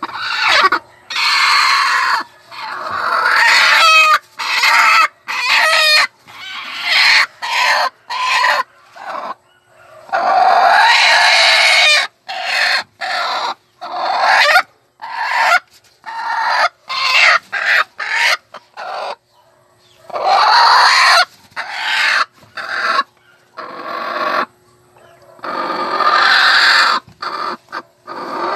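Broody hen sitting on a clutch of eggs, clucking and squawking loudly in repeated calls, most short and a few drawn out for a second or two: a sitting hen protesting at being disturbed on her nest.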